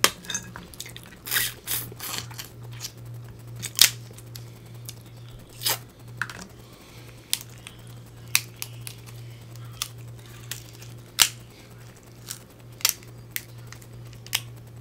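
Boiled crab leg shells cracked and snapped apart by hand: a dozen or so sharp, irregular cracks, over a steady low hum.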